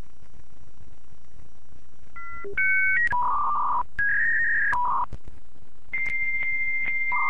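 Electronic beeps like telephone keypad tones: after about two seconds of faint hiss, a run of short steady tones, some single and some in pairs, each at a different pitch. Then a long high beep starting about six seconds in, with a lower tone joining near the end.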